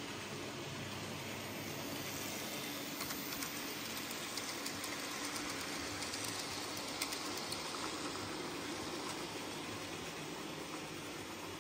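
Model railway goods train of short wagons rolling past on the track, with light clicking from the wheels between about three and eight seconds in, over a steady hiss of room noise.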